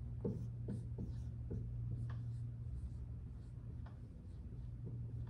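Marker writing on a whiteboard: a run of short strokes and scratches as a word is written out.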